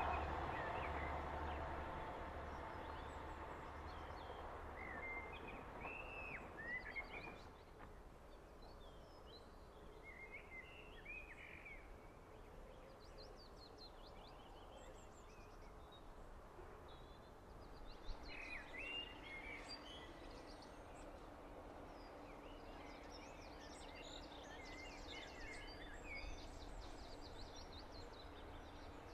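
Small birds chirping and singing in short, faint calls, while the rumble of a departing TransPennine Express Class 185 Desiro diesel unit dies away over the first several seconds. A faint steady hum comes in a little past the middle.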